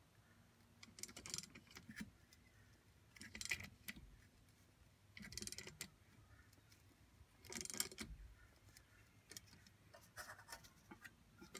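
Small hand socket ratchet clicking in short runs about every two seconds. A bolt is being wound into the jacking hole of a rear brake drum to push the stuck drum off the hub.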